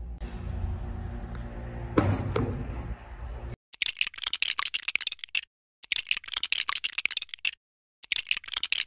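A steady low electrical hum from the opened snack vending machine, with a single knock about two seconds in. From about three and a half seconds there is a fast, dense run of small clicks and clatters, broken twice by abrupt cuts to silence.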